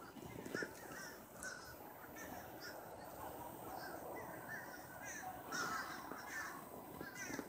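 Several birds calling overhead, many short calls overlapping one another.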